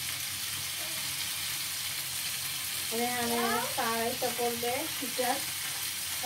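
Chicken and vegetable shashlik skewers sizzling steadily as they fry in a black pan. A high-pitched voice talks over the sizzle from about halfway through.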